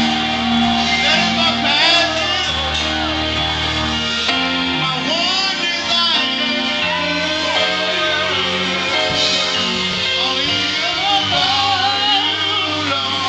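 Live praise and worship music: singers with guitar-led band accompaniment, voices gliding and holding notes over sustained chords.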